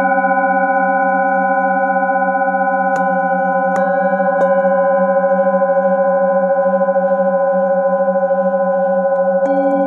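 Singing bowls ringing together in long, steady, overlapping tones with a slow pulsing waver. A bowl held in the palm is struck with a mallet three times, about three to four and a half seconds in, and once more near the end, each strike adding a fresh tone to the ringing.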